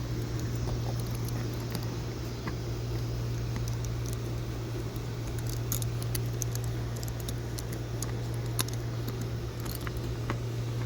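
Light rustling and scattered small clicks of packaging and foil wrap being handled around a new motorcycle windshield, over a steady low hum.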